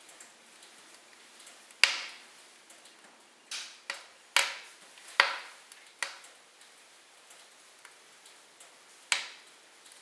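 Wood fire burning in a fireplace, crackling over a faint hiss, with sharp pops and snaps from the burning log: the loudest about two seconds in, around four to five seconds in, and near the end.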